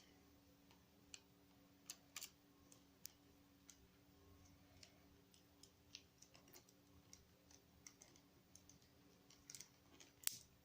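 Faint, scattered clicks and taps of the hard plastic parts of a G.I. Joe Night Viper action figure being handled and snapped back together on its rubber O-ring.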